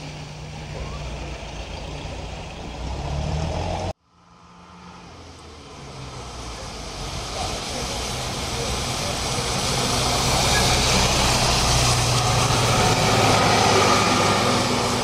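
City bus engine drawing near and passing close, growing steadily louder over about eight seconds after an abrupt break in the street noise about four seconds in. Before the break, general street traffic is heard.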